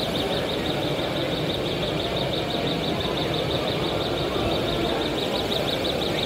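Steady background din of a busy exhibition hall, with a rapid high-pitched beeping that fades out near the start.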